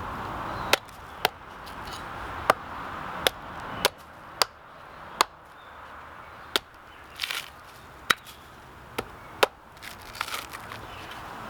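Sharp knocks of a tool striking seasoned, dried-out bark on a hardwood log to break it away. There are about a dozen single strikes at irregular intervals, one to two seconds apart.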